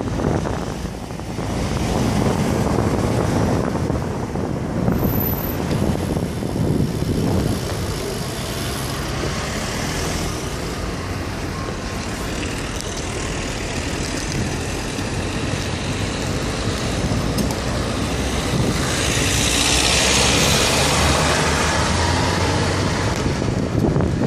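Wind rushing over the microphone of a camera mounted on a moving road bike, a steady rumble, mixed with passing road traffic. There is a louder hiss about three-quarters of the way through.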